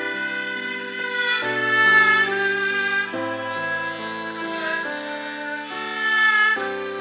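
A haegeum ensemble, Korean two-string bowed fiddles, playing a slow melody of held notes that change about once a second, with melodica accompaniment.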